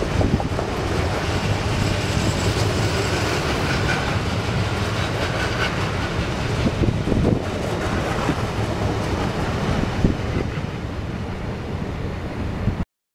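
Freight train's open box wagons rolling past, wheels clattering over the rails with a steady rumble and a sharp knock about ten seconds in. The sound cuts off abruptly near the end.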